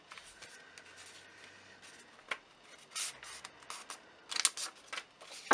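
Paper planner inserts being handled and shuffled: scattered rustles and light clicks, loudest in a burst about four and a half seconds in.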